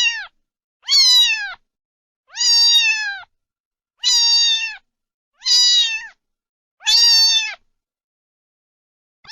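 Domestic cat meowing repeatedly, about six meows each under a second long, roughly one every second and a half, each falling in pitch at the end, then a short pause near the end.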